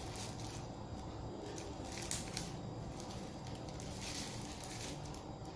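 Faint rustling and light handling noises as the drone's charging cable and its packaging are handled, with a few soft clicks over a steady background hiss.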